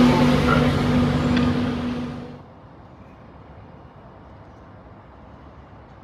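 A red LNER electric train running past at close range: steady rail and running noise with a low hum. It cuts off abruptly a little over two seconds in, leaving a low, steady station background.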